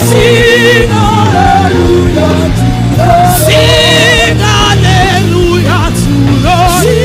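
Gospel worship music with singing: wavering, vibrato-laden melody lines over a steady bass, with a few cymbal splashes.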